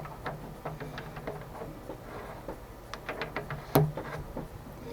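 Metal lathe parts being handled: a scatter of small clicks and light clinks, with one sharper knock near the end.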